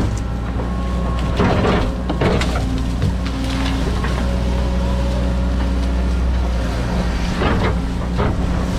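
John Deere 130G excavator's diesel engine running steadily under hydraulic load, with several knocks and cracks of the bucket working through brush and roots, about a second and a half in and again near the end.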